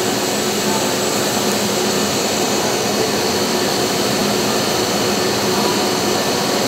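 Steady drone of workshop machinery running: an even hum and rush with a few faint steady tones in it.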